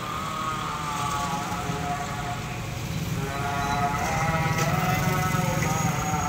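A vehicle's motor humming with several pitched tones that slide slowly. They fade and dip in pitch about a second in and swell again after about three seconds.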